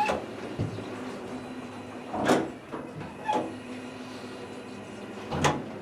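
Elevator doors opening and closing over a steady motor hum, with several separate knocks and clunks, the loudest about two seconds in and near the end.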